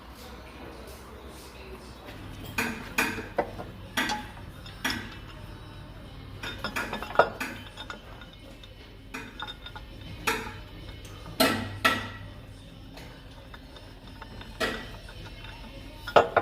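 Metal tools and bolts clinking and knocking against a steel mounting bracket as it is fitted: irregular sharp metallic clinks, some ringing briefly, with the loudest strikes about 7 and 11 seconds in.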